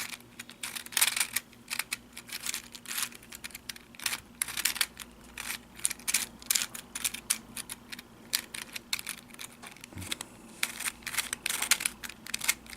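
Plastic pieces of a 3D-printed 1x3x4 floppy cuboid puzzle clicking and clacking in quick, irregular runs as its layers are turned through an algorithm. The puzzle turns somewhat roughly, its inner parts only partly sanded.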